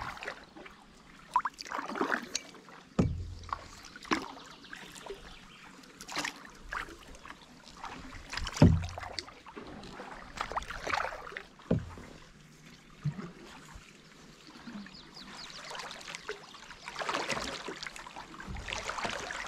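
Canoe paddle strokes on a slow creek: irregular splashes and drips of water every second or two, with a few dull knocks, the loudest about halfway through.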